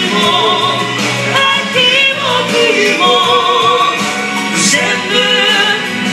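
A large group of people singing a song together in chorus, with one voice carried by a handheld microphone.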